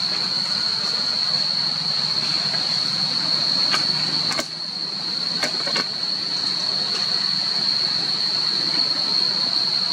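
Steady, high-pitched insect chorus droning on one unbroken note over a continuous hiss, with a few sharp clicks around the middle.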